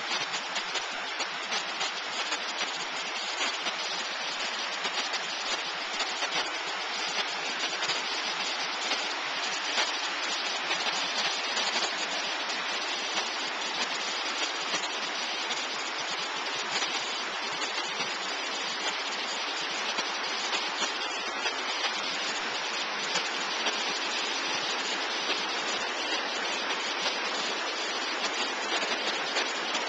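Brook at flood stage, white water rushing steadily.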